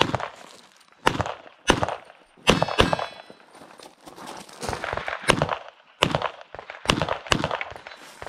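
Pistol shots from a competitor shooting an IPSC stage: about ten sharp reports, several in quick pairs, with short gaps while the shooter moves between positions. About three seconds in, one hit is followed by a brief metallic ring, typical of a steel target being struck.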